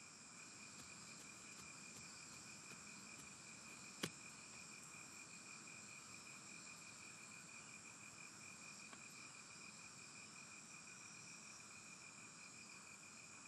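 Faint steady chorus of night insects: a pulsing, chirring trill with thinner high buzzes above it. A single sharp click stands out about four seconds in.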